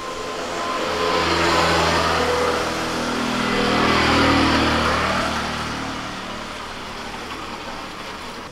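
A motor vehicle passing by on the road: engine and tyre noise swells over the first few seconds, peaks about four seconds in, then fades away.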